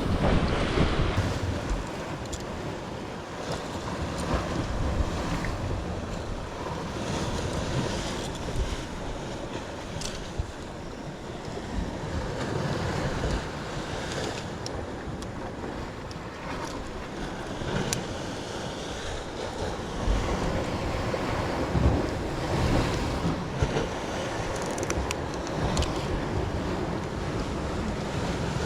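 Wind buffeting the microphone over the steady wash of sea waves, gusting stronger now and then.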